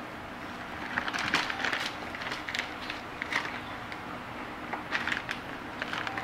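Hands at work at a kitchen counter while piping soap batter: a run of light clicks and rustles about a second in, and a shorter run around five seconds, over a steady low hum.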